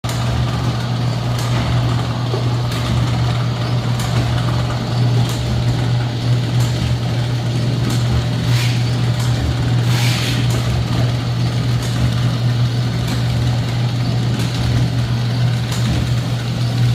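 Automatic food packaging machine running: a steady motor hum with a faint click repeating about every second and a quarter as the machine cycles, and two short hisses near the middle.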